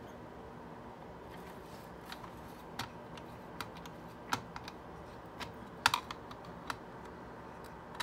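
Light, scattered plastic clicks and taps as parts of a C5 Corvette climate control unit are handled and fitted back into its plastic housing. They start about two seconds in, come irregularly, and the sharpest cluster comes about six seconds in.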